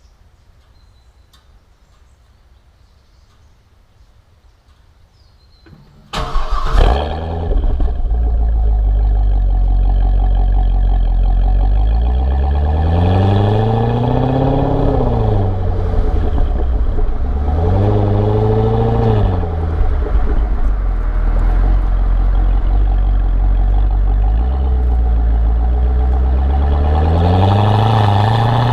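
Chevrolet C6 Corvette V8 cold-started about six seconds in with a loud flare, then settling into idle. It is revved three times, each rev rising and falling in pitch, the last one longest. Faint outdoor background before the start.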